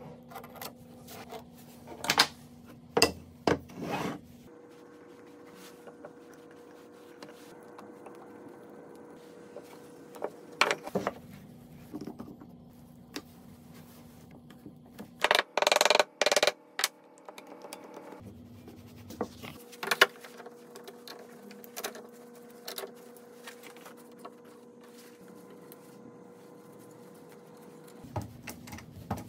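Workbench handling sounds: scattered taps and clicks of wood and metal tools, with a cluster of louder clatter about halfway through as bar clamps are fitted around round wooden legs. A faint steady hum runs underneath.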